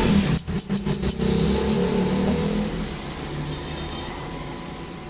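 Steady mechanical drone of workshop machinery, with a few brief dips about half a second to a second in, easing somewhat after about three seconds.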